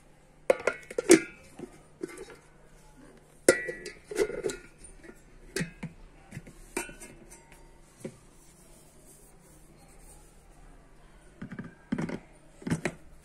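Knocks and clatter of a stainless steel chopper bowl and its clear lid being handled and fitted together, in scattered clusters of sharp clacks, with a last cluster near the end as the motor head is set onto the lid. The motor is not running.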